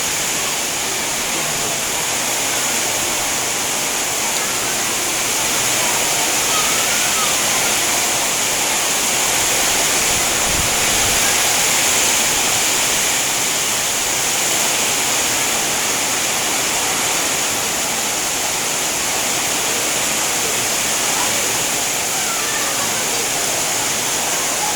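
Heavy rain pouring down: a loud, steady, even hiss that does not let up.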